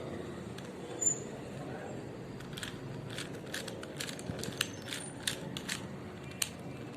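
Plastic 4x4 Rubik's Revenge cube being turned by hand: irregular clicks and clacks as its layers are twisted and snap into place, coming thicker from about two and a half seconds in.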